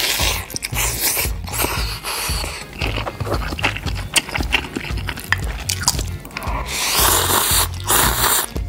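Close-miked mukbang eating: wet chewing of spam and rice with many small clicks, a slurp at the start and a longer slurp of ramen noodles near the end. Background music with a steady low beat runs underneath.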